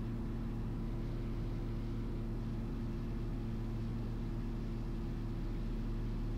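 Cabin drone of a Cessna 340A in flight: its two turbocharged six-cylinder piston engines and propellers running at a steady power setting, heard from inside the cockpit as an even, low hum.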